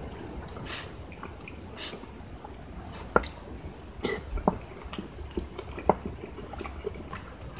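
Metal spoon scooping through a thick, wet tomato stew of chicken, chickpeas and green beans in a ceramic bowl, with soft squishing, then several sharp clinks of the spoon against the bowl from about three seconds in.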